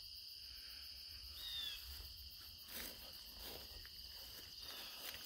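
Faint, steady high-pitched insect chorus, with a short chirp about a second and a half in.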